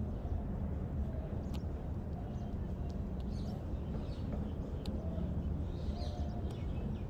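Open-air beach ambience: a steady low rumble with faint, scattered bird chirps above it.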